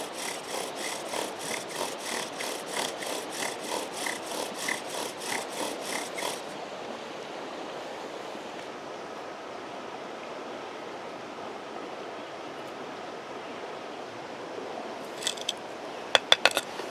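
Bow drill at work: a wooden spindle is sawed back and forth in a fireboard to get an ember, rubbing in an even rhythm of about two to three strokes a second. It stops about six seconds in, leaving the steady rush of a creek, and near the end there are a few sharp knocks as the fireboard is handled.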